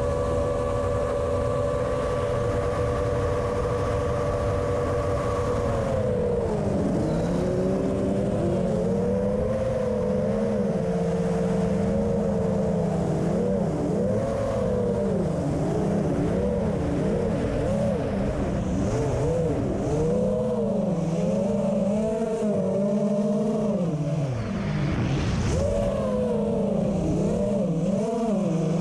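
Quadcopter's electric motors and propellers whining in flight, holding one pitch for about six seconds, then swinging up and down continually as the throttle changes through turns and banks.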